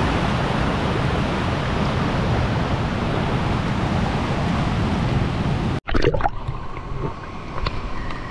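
Steady rush of river water and waterfall spray. After a break about six seconds in, it gives way to quieter water lapping and splashing close by as someone swims.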